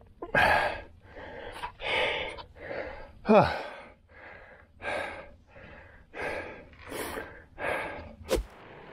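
A person gasping hard for breath, a rapid series of heavy breaths about every half second, one drawn out with a falling voiced groan about three and a half seconds in: the rider is out of breath and struggling to recover. A single sharp click near the end.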